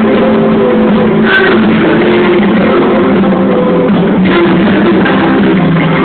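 Live pop-rock band playing loudly: electric guitar strumming over drums in an instrumental passage.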